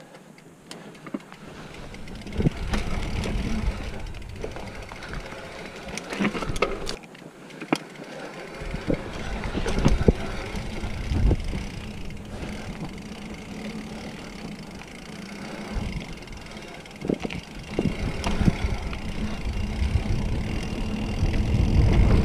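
A Specialized Fuse hardtail mountain bike descending a dirt trail: tyres rolling over dirt, with the frame and chain clattering and knocking over bumps, under gusty wind rumble on the action camera's microphone. The rumble drops out for the first second and again for about a second and a half a third of the way through, and the noise grows louder toward the end.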